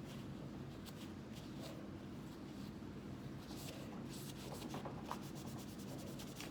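Scratchy scrubbing and rubbing on a pistol's parts during gun cleaning: scattered strokes, then a quick run of short strokes near the end. A steady low hum runs underneath.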